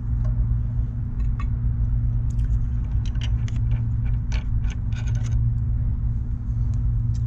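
A steady low hum throughout, with scattered light clicks and taps of brake caliper parts and hand tools being handled on a motorcycle's front brake.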